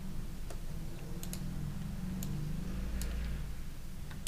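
A few scattered, sharp clicks from a computer mouse and keyboard, over a steady low hum.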